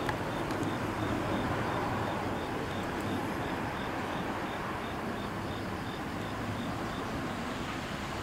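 Electric trains on the Kintetsu Osaka Line running on the double track, heard from a distance as steady rail noise. A faint high-pitched pulse repeats about four times a second.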